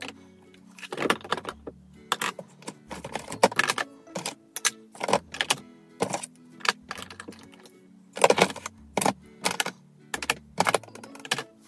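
Plastic makeup compacts, palettes and tubes clicking and clattering irregularly as they are picked up and set down in a drawer organiser tray, over background music with a steady bass line.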